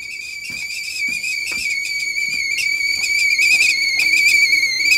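Stovetop whistling kettle at the boil: one steady, high whistle that grows louder, with a few light knocks.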